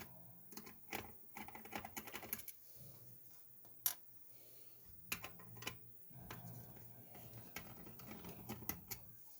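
Scattered light metallic clicks and taps as an ERA Invincible lever sash lock is handled, with one sharper click about four seconds in.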